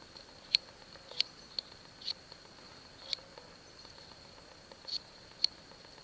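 Swiss Army knife blade shaving a small wooden stick in short, sharp scraping strokes at an uneven pace, about seven strokes in six seconds.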